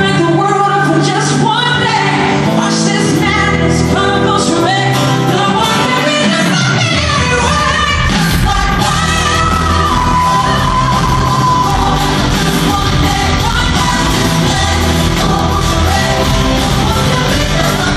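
Live pop-rock concert heard from the seats of a large arena: a woman singing lead into a handheld microphone over her band. About seven seconds in, the full bass and drums come in under the voice.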